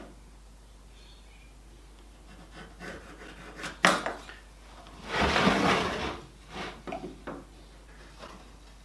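Pieces of timber being handled on a workbench: a sharp wooden knock about four seconds in, then a scraping slide lasting about a second, and a few lighter taps.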